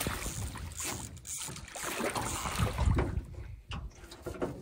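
Lake water splashing and sloshing around a landing net held at the side of an aluminium boat while a trout is netted, with a few knocks on the hull and wind on the microphone.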